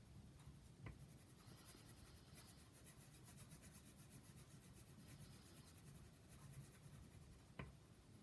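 Faint scratching of a crayon being rubbed back and forth on paper as a picture is coloured in. Two light ticks come about a second in and near the end.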